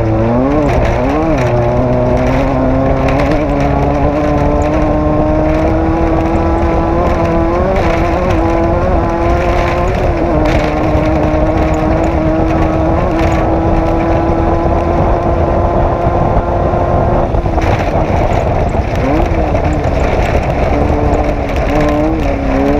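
Race vehicle's engine held at high revs under hard throttle. Its pitch dips and climbs twice in the first second or so, creeps slowly upward for most of the stretch, drops off about three-quarters through with a quick blip, then holds again.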